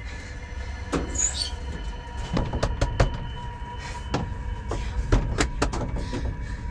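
A steady low rumbling drone with a faint steady hum on top, broken by a dozen or so irregular sharp knocks and clacks.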